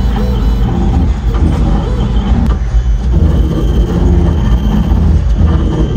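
Pet ID tag engraving machine running, a loud, steady mechanical rumble.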